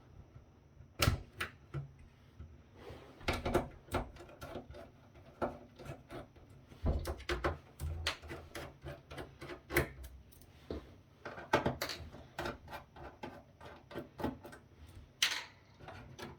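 Irregular sharp clicks, taps and knocks of metal parts and tools being handled while a steel-framed electronics unit is taken apart, some strikes much louder than others.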